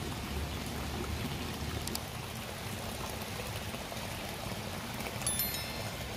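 Water from a small pump-fed waterfall splashing steadily over river stones into a garden pond. A few short high clicks sound about five seconds in.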